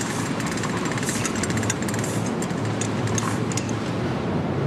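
A ship's engine and deck machinery running steadily, with a low hum and quick rattling ticks over it.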